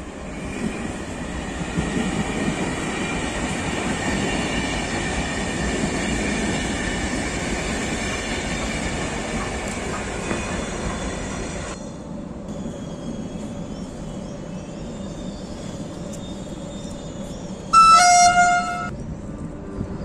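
Moroccan Z2M double-deck electric multiple unit passing close by: a steady rumble of wheels on rail with a high whine over it. After a cut, a train horn sounds once for about a second near the end as another train approaches.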